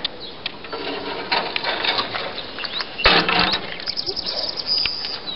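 Barn swallows nesting in the stable, twittering and chattering in quick high chirps, over footsteps brushing through grass, with a brief louder rustle about three seconds in.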